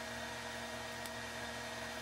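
Steady whir of a running electric motor, with a constant pitched hum that does not change.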